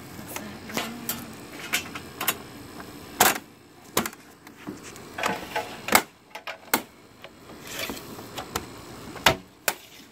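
Irregular sharp clicks and knocks of a glass panel and aluminum railing parts being handled and fitted, a few louder knocks standing out.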